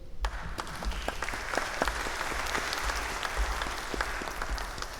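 Congregation applauding: many hands clapping together, starting just after the start and fading out near the end.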